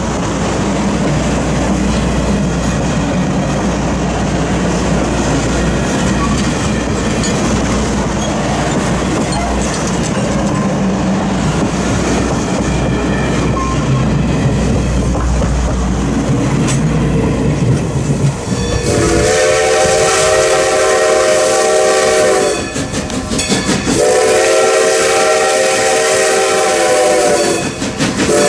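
Passenger coaches rolling past on the rails with a steady rumble and clatter of wheels on track. Then a steam locomotive's whistle blows two long, steady blasts, sounding for a grade crossing, and a third blast begins at the very end.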